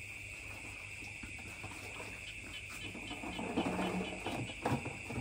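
Steady chorus of night insects, a constant high buzzing, with faint knocks of plastic buckets being handled. A few faint low calls come about three to four seconds in.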